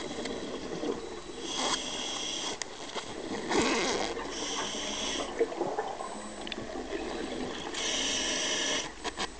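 Scuba diver breathing through a regulator underwater: hissing inhalations through the demand valve about three times, and bursts of exhaled bubbles in between.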